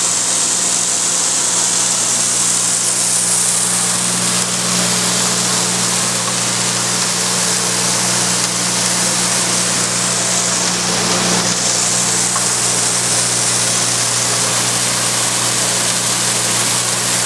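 Vincent VS8 8-inch shredder running steadily, shredding dry raw pistachios. Its motor hums under a dense, even rush of cutting and grinding.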